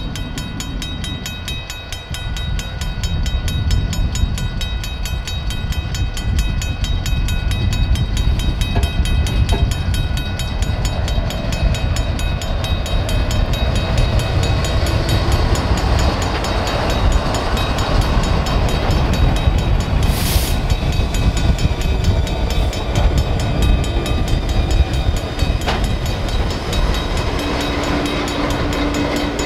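CN diesel locomotives running light through a road grade crossing: engines running with a heavy rumble that builds from about two seconds in as the lead unit, a GE ET44AC, comes alongside, with wheels on the rails. The crossing signal's bell rings steadily throughout, and there is a short sharp hiss about two-thirds of the way through.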